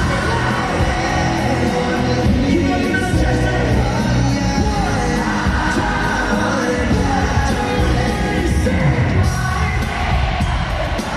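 Live pop concert: a boy band singing into microphones over loud amplified backing music, with the arena crowd yelling along.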